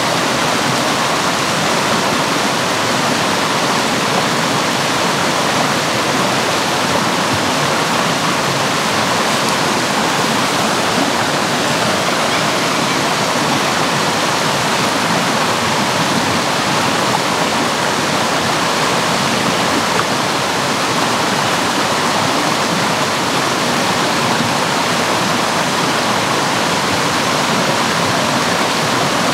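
Rushing water, steady and continuous.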